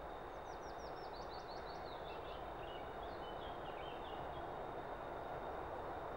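Distant SM42 diesel locomotive approaching, a steady noise that grows slowly louder. A songbird sings a phrase of quick falling notes over it in the first few seconds.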